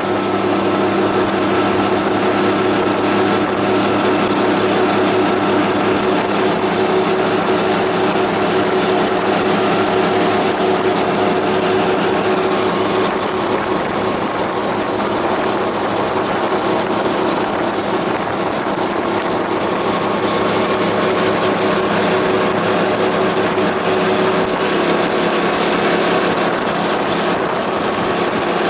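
37 hp fuel-injected (EFI) mud motor on a flat-bottomed boat running steadily under way, the engine note shifting slightly about halfway through and again near the end.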